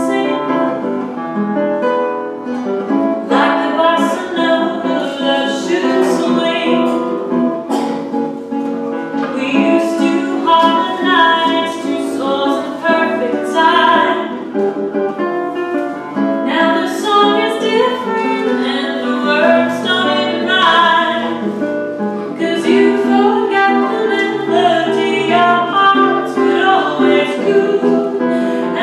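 A woman singing with classical guitar accompaniment: sustained sung lines over plucked guitar notes.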